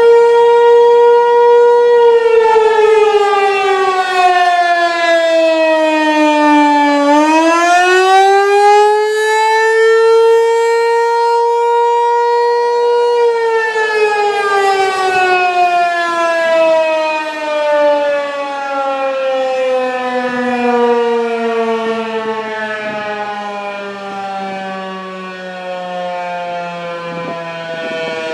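American Signal T-128 outdoor warning siren, rectifier-powered, sounding the Attack Signal wail with many overtones. It holds a steady pitch, dips and climbs back over about eight seconds, holds again, then falls in a long, slow glide that runs on to the end.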